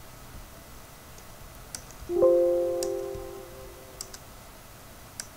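Computer system chime about two seconds in: several tones struck together that ring and fade out over about a second and a half, the sound of a dialog box prompt popping up. A few soft mouse clicks around it.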